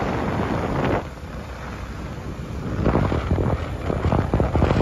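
Wind rushing over the microphone of a camera on a moving motorcycle, with road noise underneath. It drops sharply about a second in, then builds back in gusts that buffet the microphone.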